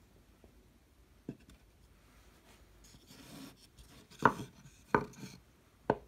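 Carved pine pieces of a razor holder handled on a wooden workbench: a light knock about a second in, a short scrape, then three sharp wood-on-wood knocks in the second half as the pieces are set down, the first the loudest.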